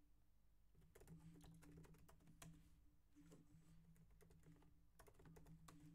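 Faint typing on a computer keyboard: a run of quick key clicks that starts about a second in and stops near the end.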